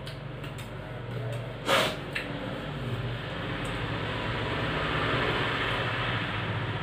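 Steady mechanical hum and hiss, with a short sharp clatter a little under two seconds in.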